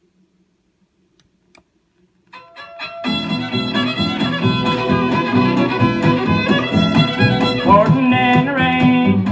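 Decca 45 rpm record playing on a turntable: a few faint surface clicks, then, about two seconds in, a country band's instrumental intro starts, led by a fiddle that slides between notes near the end.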